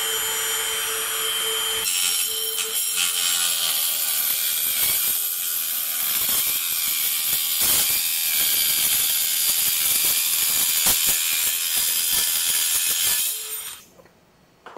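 Red Milwaukee Fuel cordless circular saw cutting through an aluminium square tube held in a vise. First the motor's steady whine, then from about two seconds in a harsh, high-pitched cutting noise as the blade goes through the metal. It stops about a second before the end.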